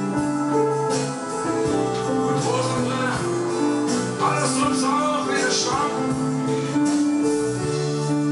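Music played live on a Roland arranger keyboard: held chords with a melody line moving over them.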